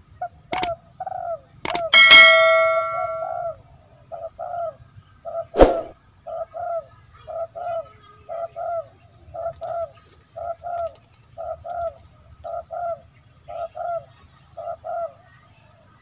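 A dove cooing: a long, steady series of short coos in pairs and small groups. About half a second to two seconds in come several sharp clicks and a bell-like ringing tone that lasts over a second. A loud click follows near six seconds in.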